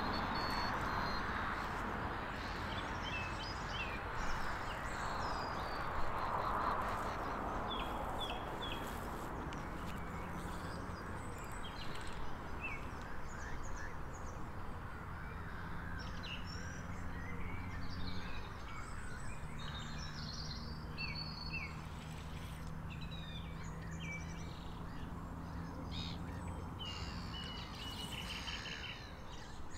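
Outdoor ambience of birds chirping and calling, many short calls throughout, over a steady background hiss, with a faint low hum in the second half.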